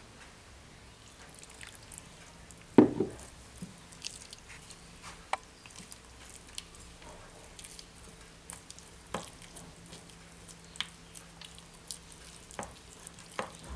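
Frying batter of flour, cornflour and water being stirred in a bowl, with irregular light clicks of the utensil against the bowl and one louder knock about three seconds in.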